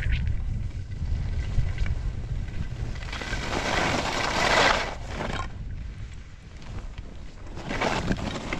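Wind buffeting the microphone at speed on a ski descent. Two loud hissing scrapes of skis carving across packed snow: a long one about three seconds in and a shorter one near the end.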